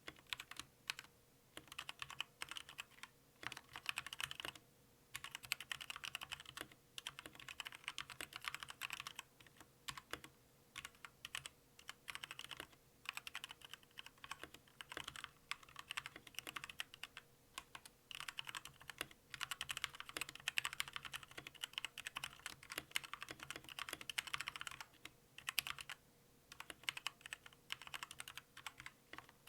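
Typing on a Zet Gaming Blade Pro mechanical keyboard with Kailh Red linear switches: quick runs of keystroke clicks, broken by a few short pauses.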